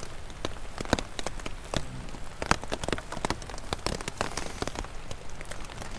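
Rain falling on a tent, heard from inside: a steady hiss with many sharp, irregular drop hits on the fabric.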